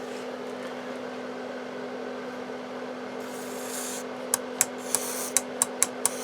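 A transistor radio on the bench gives a steady low hum-like tone with hiss. About four seconds in, a rapid even series of sharp clicks starts, about four a second, as the flaky two-position band switch is worked back and forth.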